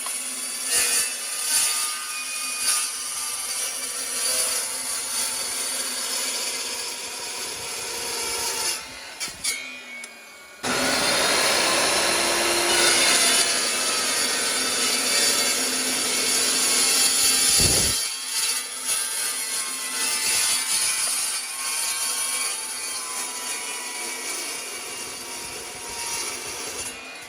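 Power tool cutting through pipe to make burner sleeves, a dense, hissing cutting noise. It steps up suddenly, louder, about a third of the way in.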